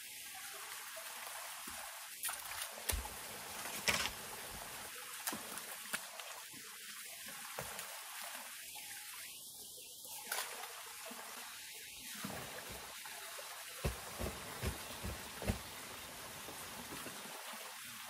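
Water trickling steadily, with a few light knocks scattered through it, several close together near the end.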